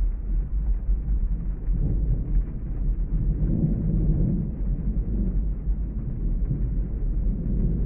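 Rain ambience with a low rolling rumble of thunder that swells about three to four seconds in and then eases off.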